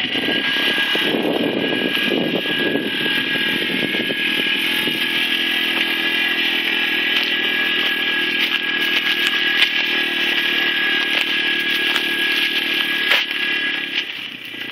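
Small youth ATV engine running steadily at a low, even speed, its pitch barely changing, with a brief dip in level near the end.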